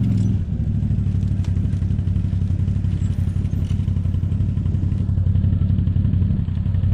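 Quad bike engine running steadily.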